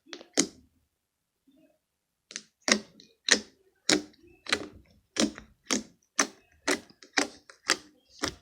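Slime being pressed and worked by hand, giving short sharp popping clicks as air pockets in it burst, about two a second, with a short pause near the start.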